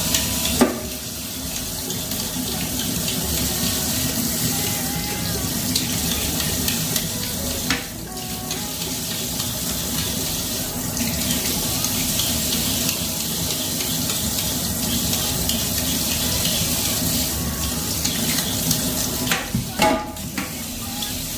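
Kitchen tap running steadily into a sink while produce is rinsed under it, with a few short knocks: one about half a second in, one midway and a cluster near the end.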